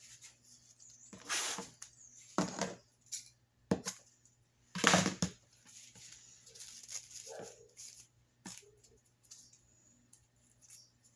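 A dog barking in short single barks, four of them about a second apart, the last the loudest, then a few fainter sounds.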